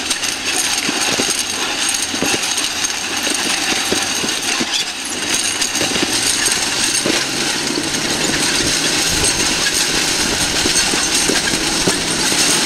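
Rollers of a long metal roller slide rattling rapidly under a rider sliding down it: a dense, continuous clatter of many small ticks.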